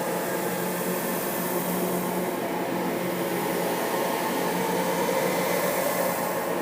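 Eerie droning ambience: a steady hiss-laden drone with several low held tones, swelling and fading slowly.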